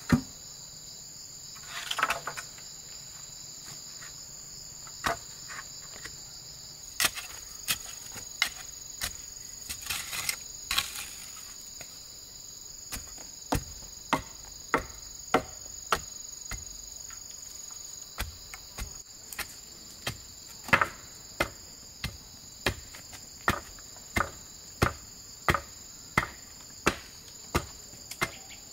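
Steady high-pitched chorus of crickets and other insects, with a series of sharp knocks like chopping or hammering: scattered at first, then a regular run of about one and a half strikes a second through the second half.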